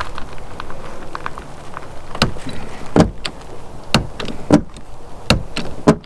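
A series of sharp knocks, six in about four seconds at uneven spacing, starting about two seconds in, with a few faint clicks before them.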